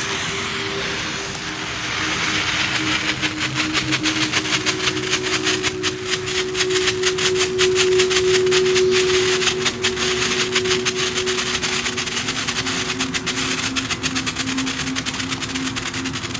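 Small ground fountain firework (TNT Lightning Flash) burning: a loud hiss that, a couple of seconds in, turns into rapid crackling, many sharp cracks a second, thinning out near the end. Steady synth music tones sound underneath.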